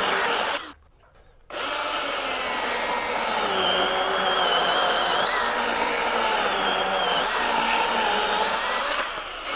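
Milwaukee M18 FUEL brushless cordless chainsaw cutting through a wet oak round. The motor's whine wavers in pitch under load as the chain bites the wood. The sound drops out for under a second near the start.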